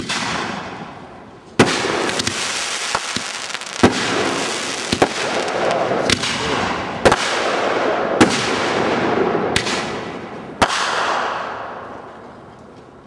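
Aerial fireworks bursting overhead: a string of about nine sharp bangs, roughly one a second, each leaving a lingering rumbling tail. The bangs stop with about two seconds to go.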